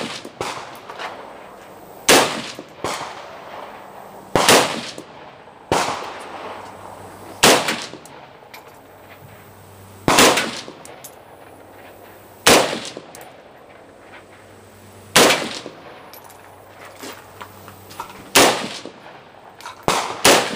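CZ vz. 58 rifle firing 7.62×39 rounds as slow, aimed single shots: about ten sharp shots, one every two to three seconds, each followed by a short echoing tail.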